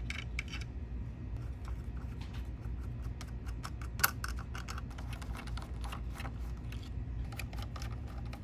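Scattered light clicks and taps of small parts being handled on the front chassis of a Pioneer SX-1980 receiver, with one sharper click about four seconds in, over a steady low hum.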